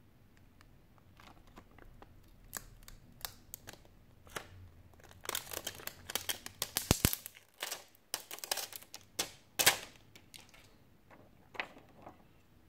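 Thin clear plastic film crinkling and crackling in the fingers as it is peeled off a display's adhesive sealing gasket: a rapid run of sharp crackles and clicks, thickest in the middle.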